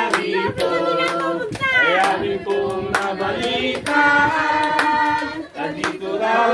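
A group of people singing together while clapping along to the beat.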